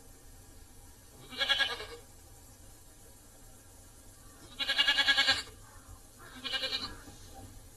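An animal calling three times, each a short wavering, pitched call lasting under a second, with the last one quieter.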